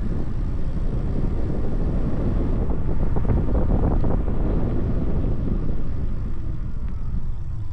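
Wind buffeting the microphone of a camera on a moving e-bike, a steady low rumble, with a faint electric motor whine that falls in pitch near the end as the bike slows.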